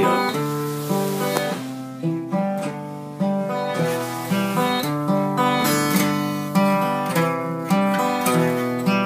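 Steel-string acoustic guitar strummed, playing a run of chords with no singing over it.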